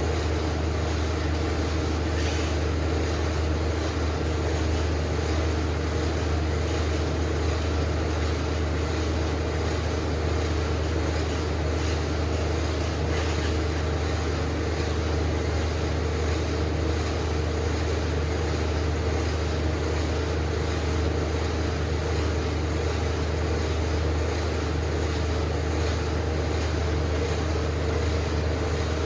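Steady low mechanical hum of machinery running, even and unchanging, with a couple of faint clicks.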